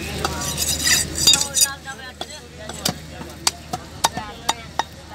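Large knife chopping a queenfish's head off on a wooden block: a run of sharp knocks, about six in the last two and a half seconds.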